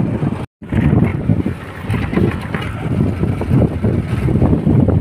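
Wind buffeting the phone's microphone in an uneven low rumble, broken by a brief cut to silence about half a second in.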